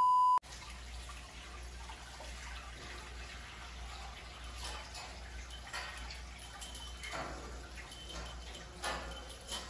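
Salt water being poured from a plastic jug into a glass aquarium, with irregular splashes and drips over a low steady hum. A brief steady beep at the very start.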